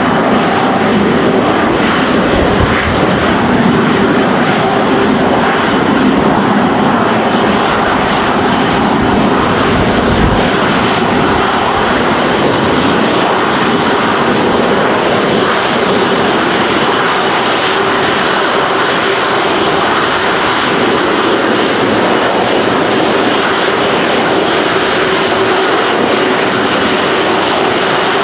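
Airbus A330-300's two Rolls-Royce Trent 700 turbofan engines running steadily at taxi power, a loud, even jet noise with a faint steady hum beneath it.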